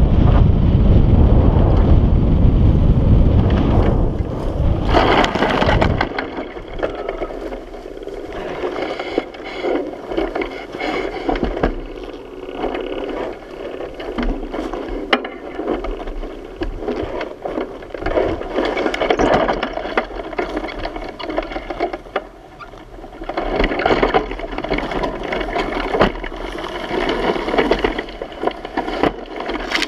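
Wind buffeting the microphone of a hang glider on its landing run, dropping away after about six seconds. Then dry grass and brush rustle, crackle and scrape against the glider's frame, sail and harness as it settles in the bushes.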